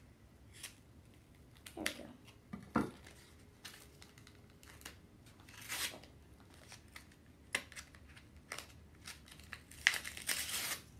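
Scissors cutting open plastic packaging, with the wrapper crinkling and tearing in scattered short rustles and a busier, louder stretch of handling near the end.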